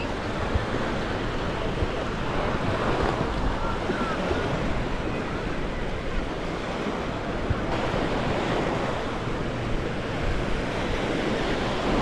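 Small waves breaking and washing up on a sandy shore in a steady rush, with wind buffeting the microphone.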